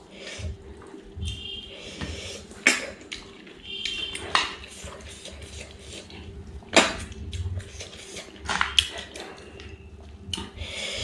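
Close-up eating sounds of cooked snails being sucked out of their shells, with several sharp slurps and brief squeaks, and clinks of snail shells against a stainless steel plate.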